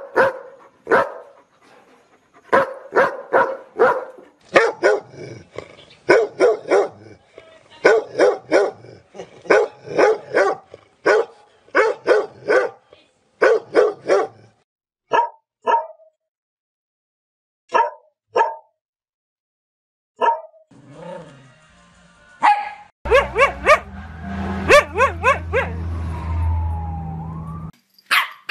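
Dogs barking, a large Belgian Malinois-type dog in quick repeated runs of barks for the first half, then sparser single barks with a brief pause. Near the end more barking sits over a low steady hum and a gliding tone.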